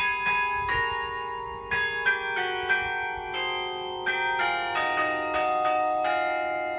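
Church bells ringing a peal: a run of overlapping strikes, two or three a second, each left to ring on.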